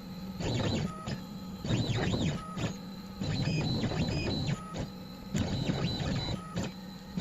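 Onefinity CNC stepper motors driving the MC etcher through a run of short moves. The stepper whine rises and falls in pitch with each move, with brief pauses in between, as the diamond etcher traces a logo into acrylic.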